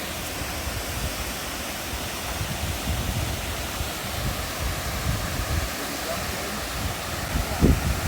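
Steady rushing of a waterfall, with low gusts of wind buffeting the microphone.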